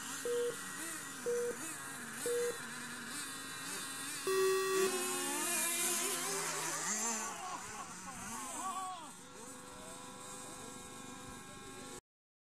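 The race-timing system counts down the start with three short beeps a second apart, then a longer, lower start tone. Right after it, several radio-controlled cars' motors whine, rising and falling in pitch, as they accelerate away from the grid. The whine fades over the next few seconds.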